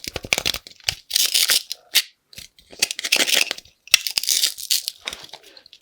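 Kinetic sand being pressed and cut, making a crunching, crumbling noise: a quick run of small clicks at first, then three crunching bursts about a second apart.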